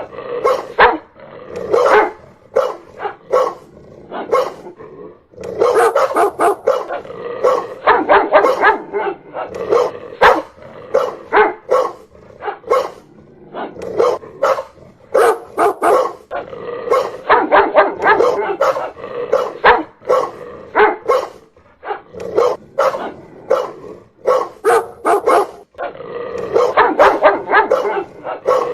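Dog barking loudly and repeatedly in quick volleys, each a rapid run of sharp barks, broken by short pauses of a second or two.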